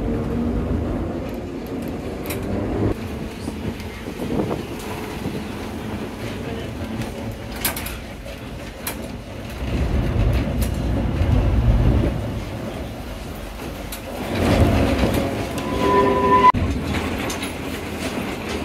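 Vintage tram running on its rails, heard from inside the car: a steady low rumble of wheels and motor with scattered sharp clicks and knocks, swelling louder twice in the second half, with a short high squeal near the end.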